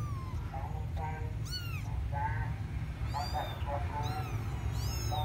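Young kittens mewing: about four high-pitched mews in a row, each falling in pitch, over a steady low hum.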